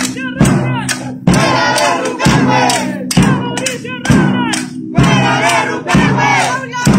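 Crowd of protesters chanting and shouting together in time with a steady beat, a little under one beat a second, over music.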